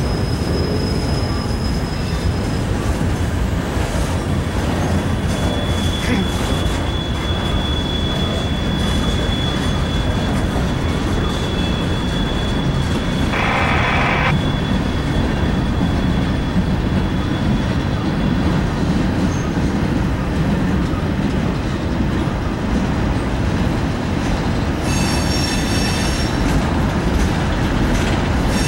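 Freight cars of a passing freight train rolling by at close range: a steady rumble of steel wheels on rail, with a thin, high wheel squeal held for long stretches. There is a brief, harsher screech about halfway, and a louder ringing squeal over the last few seconds.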